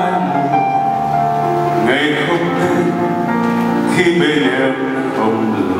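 Male vocalist singing into a handheld microphone over a live band, with long held notes that waver in pitch.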